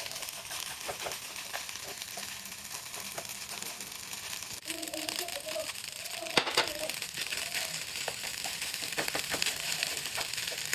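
Egg fried rice sizzling in a nonstick frying pan while a wooden spatula stirs and scrapes through it, with many light scraping clicks over a steady hiss. A sharp knock comes about six seconds in.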